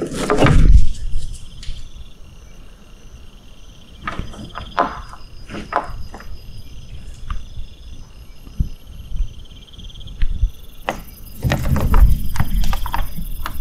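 Insects trilling steadily in the background, with irregular rustling and scuffing on top, loudest at the start and again over the last couple of seconds.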